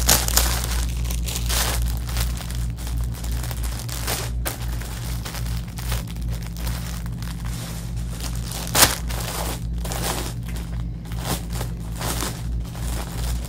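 Clear plastic garment bags crinkling and rustling irregularly as clothes are pulled out and handled, with one sharper crackle near nine seconds in. A steady low hum runs underneath.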